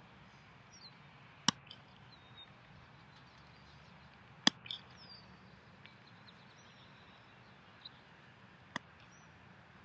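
Sharp slaps of a football striking hands: two loud ones about three seconds apart and a fainter one near the end. Small birds chirp faintly in the background.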